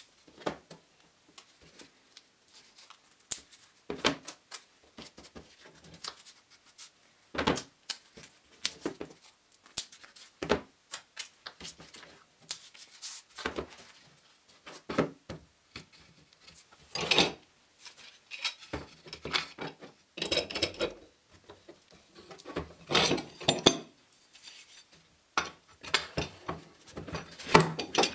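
Workbench handling sounds: scattered knocks, taps and rubs as a stack of glued veneer sheets is squared up and taped on a cutting mat. A few longer rasping sounds come around the middle, and there is metal clattering from steel G-clamps near the end.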